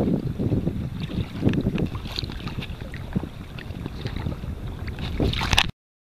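Wind buffeting the microphone over water splashing and slapping against a sea kayak's hull in choppy water. The sound cuts off abruptly near the end.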